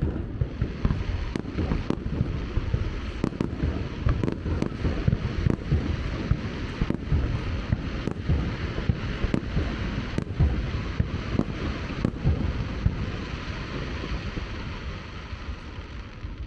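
Aerial fireworks display: a dense, continuous barrage of booming shell bursts, several a second, over a steady sizzling crackle.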